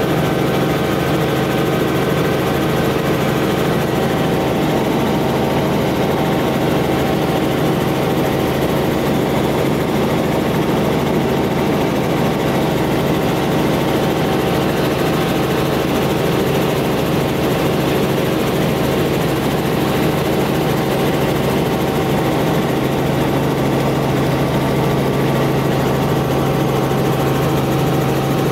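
Helicopter in steady flight heard from inside the cabin: a constant drone of engine and rotor with several unchanging hum tones.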